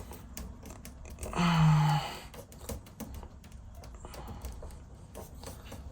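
Scattered light clicks and taps of small hardware being handled during a smart lock installation, with a short hummed "mm" from a man's voice about a second and a half in.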